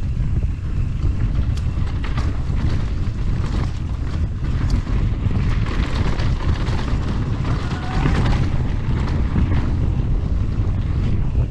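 Wind buffeting the microphone on a fast mountain-bike descent: a steady heavy rumble, with tyres rolling on a dirt trail and scattered sharp clicks and knocks as the bike rattles over bumps.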